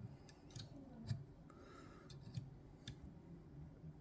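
Faint metal clicks and a brief scrape of a lever pick and tension tool working inside a Chubb GPO No.6 six-lever lock. The clicks are scattered, with a stronger one about a second in.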